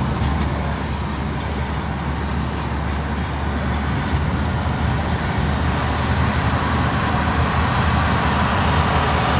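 Steady road and engine noise heard inside a moving car's cabin at highway speed, a low rumble that grows a little louder near the end.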